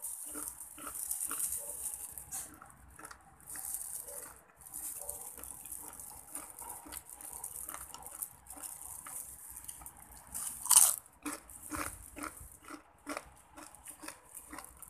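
A plastic glove crinkling while pieces of crispy fried chicken skin are handled and dipped, with scattered short crunchy crackles; the loudest crackle comes about eleven seconds in.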